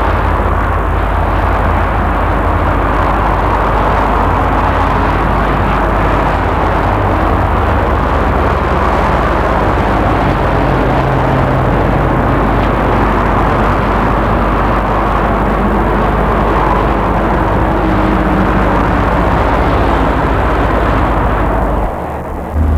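Steady motorway traffic noise from cars and heavy lorries, including a heavy-haulage tractor unit pulling a low-loader, with a steady low hum underneath.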